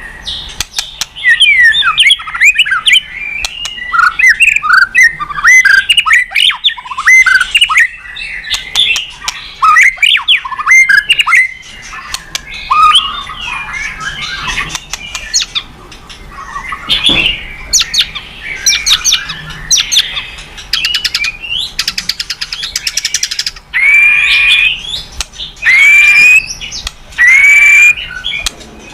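White-rumped shama singing a long, varied song of quick whistled phrases, rapid trills and harsh notes, closing with three long falling whistles a couple of seconds apart.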